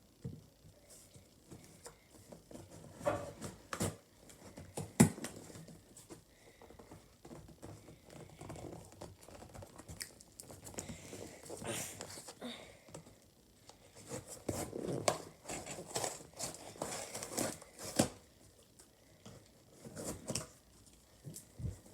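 Packaging being opened and handled: crinkling and tearing with scattered clicks and knocks, one sharp knock about five seconds in.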